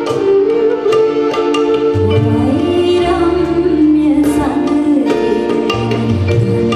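Live small ensemble of harmonium, violin and acoustic guitar with hand-drum percussion playing a melodic song accompaniment, with a woman's singing voice over it from about midway.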